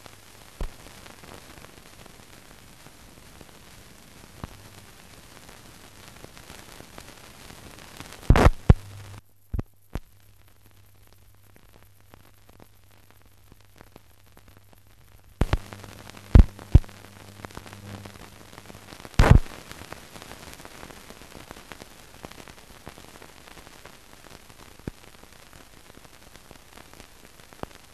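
Surface noise of an old film soundtrack with no programme sound on it: a steady hiss, a low hum through the middle stretch, and about seven sharp clicks and pops scattered between a third and two thirds of the way through.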